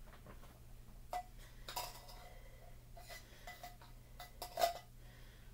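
A metal spoon tapping and scraping inside a small open tin can to knock out canned mushrooms: a string of sharp metallic clinks, each with a brief ring, the loudest near the end.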